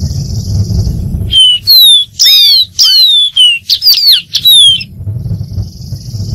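Dark-throated seedeater singing: a string of loud, clear whistled notes, most sliding down in pitch, starting about a second and a half in and lasting about three and a half seconds. Before and after the song there is a steady high hiss and a low rumble.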